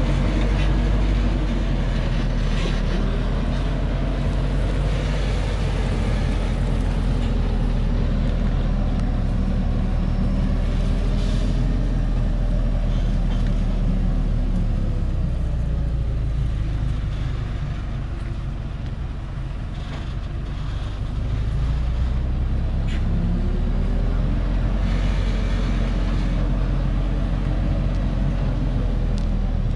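Laden log truck's diesel engine running as it creeps down a steep dirt track. Its pitch sinks and then climbs back about two-thirds of the way through.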